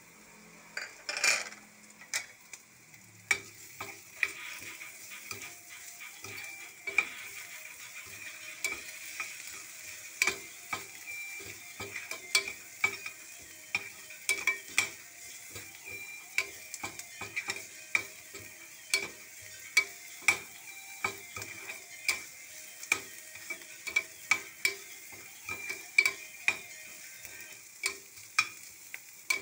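Onion and garlic sizzling in hot oil in a stainless steel pan, with a spatula stirring and knocking against the pan about one to two times a second. A louder clatter comes about a second in.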